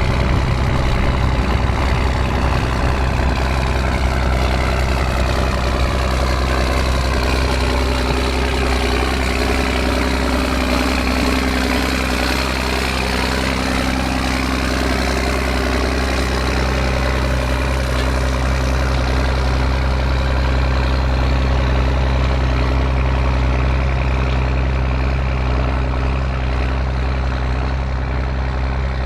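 John Deere tractor engine running steadily while ploughing, with a fainter pitch that sweeps down and back up in the middle.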